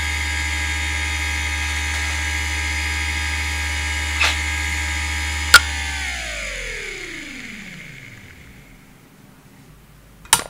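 Western Digital Caviar 31200 4500 rpm IDE hard drive idling with a steady spindle whine and a faint click about four seconds in. A sharp click comes at about five and a half seconds; the spindle then spins down, its whine falling in pitch and fading over a few seconds. Two loud clicks near the end.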